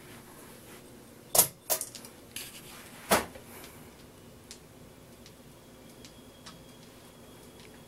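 A few sharp clicks with a light metallic jangle, the loudest about one and a half seconds and three seconds in, typical of the pull chain being tugged and the fan's pull-chain speed switch clicking over. A faint steady hum runs underneath.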